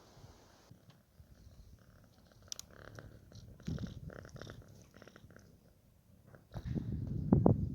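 Domestic cat purring in low, rhythmic pulses, growing much louder near the end.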